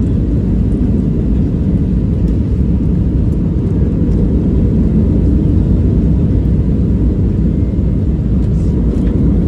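Jet airliner cabin noise on landing approach, heard from a window seat: a loud, steady low rumble.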